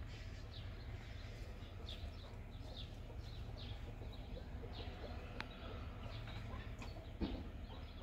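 Birds calling in short, falling chirps, repeated on and off, over a steady low rumble, with a single sharp click about five and a half seconds in.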